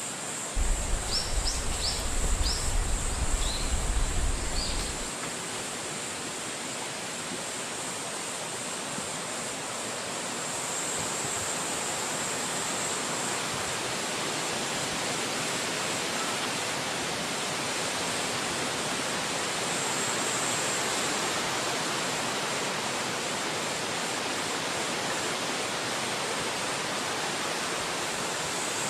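Wind blowing through forest trees, a steady rushing that swells slightly about ten seconds in. In the first few seconds gusts buffet the microphone with a low rumble, and a few short high chirps sound over it.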